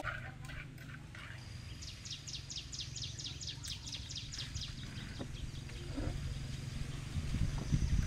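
A rapid series of high chirps, about five a second, from a small wild creature for a few seconds, over a steady low hum; a few faint knocks come near the end.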